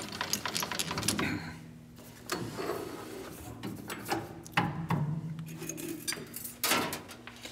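Irregular clicks and clinks of metal parts and tools being handled at a stopped metal lathe, with a few sharper knocks about halfway through and again near the end.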